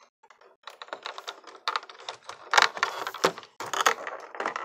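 Clear plastic toy packaging crinkling and crackling as it is handled and pulled open, in quick irregular crackles with louder bursts about two and a half and three and a half seconds in.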